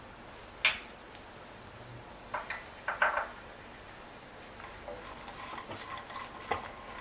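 Silicone spatula stirring peanuts, garlic cloves and sesame seeds roasting in a little oil in a nonstick kadhai: a few short scraping strokes over a faint sizzle.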